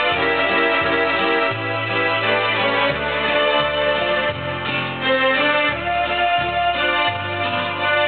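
Karaoke backing track playing an instrumental passage led by organ-like keyboard chords, over a bass line that moves to a new note every second or two.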